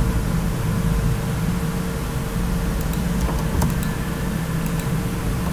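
Steady low hum of background noise with a faint constant tone above it, and a faint click or two about three and a half seconds in.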